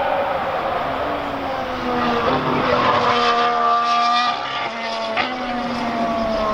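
Lotus Formula 1 car's engine at high revs on track, its pitch climbing through the middle, shifting about five seconds in, and dropping near the end as the car passes.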